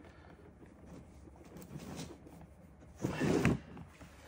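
Handling noise from a plastic hood scoop on a cardboard box: faint rubbing while a soaped rubber grommet is pushed through its hole, then a louder half-second rustle about three seconds in as the scoop is lifted.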